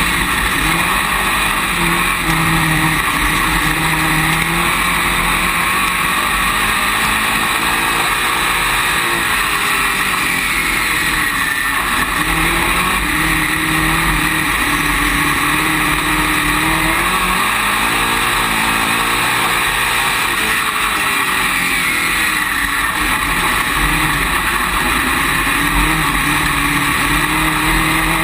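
Dirt late model's V8 racing engine heard from inside the cockpit at speed, its pitch rising and falling several times as the driver gets on and off the throttle around the track. A constant rush of wind and engine noise runs underneath.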